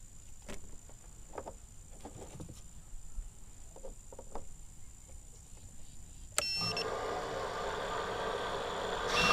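A LiPo battery is plugged into a QAV-R quadcopter through a smoke stopper. After some faint handling clicks comes a sharp connector click about six seconds in, then short electronic beeps and a steady buzzing hiss as the smoke stopper holds back the current.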